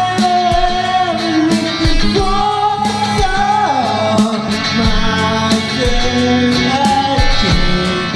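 Rock music with guitars and a drum beat, its melody sliding between long held notes.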